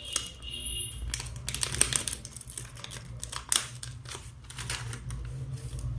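Irregular light clicks and taps of small electronic sensor modules and their packets being handled, over a steady low hum.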